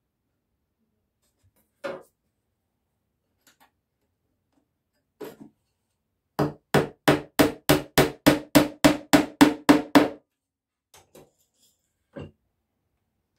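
Small hammer driving small nails through a steel runner strip into a wooden beehive box. It gives a single strike about two seconds in and another near five seconds, then a quick even run of about a dozen strikes, roughly three a second, and a few light taps near the end.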